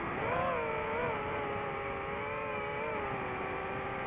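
Drone propellers and motors whining in a steady, multi-toned hum. The pitch swells up briefly in the first second, then holds nearly level with slight wavering.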